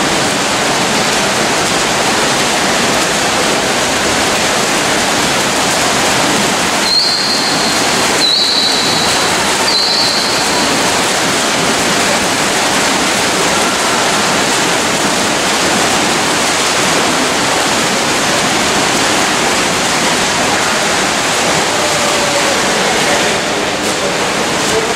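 Steady dense noise of several swimmers splashing through a freestyle race, with echo from the indoor pool hall. Three short high-pitched tones sound about seven to ten seconds in.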